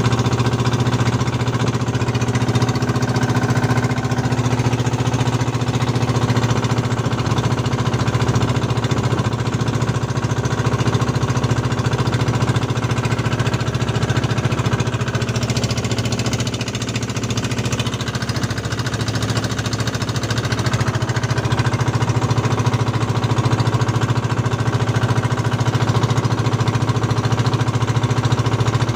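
Small outrigger boat's engine running steadily with a rapid, even chugging that dips slightly about seventeen seconds in.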